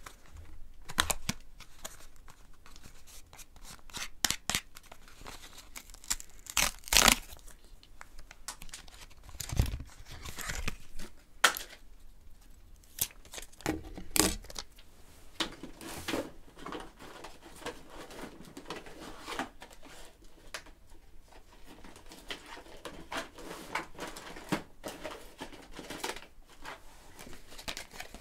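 Cardboard and plastic packaging of a pocket operator synth being opened by hand: tearing and crinkling, with many scattered sharp taps and clicks as the parts are handled and set down.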